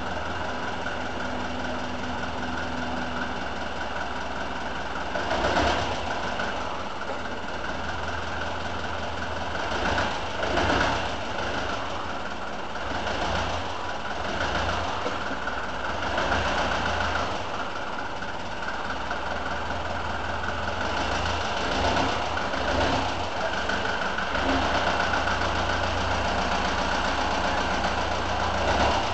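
Diesel engine idling steadily on a railway shunting vehicle, with several brief louder swells.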